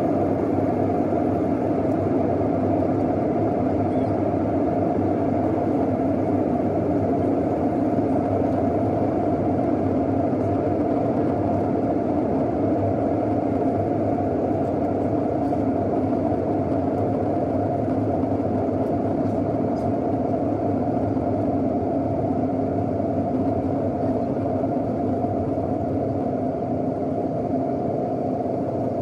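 Steady in-flight cabin noise of a Boeing 737 during descent, heard from a window seat over the wing: an even rush of jet engines and airflow that holds level without rising or falling.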